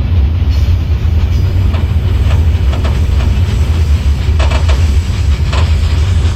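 Iron ore train running, heard from an open ore wagon: a heavy, steady rumble with scattered metallic knocks and clanks of the wagons and wheels on the rails.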